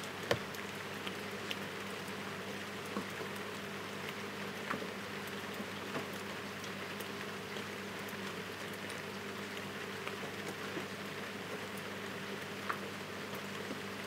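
Heavy rain falling steadily: an even hiss with single drops ticking sharply here and there, the sharpest about a third of a second in. A faint low steady hum lies underneath.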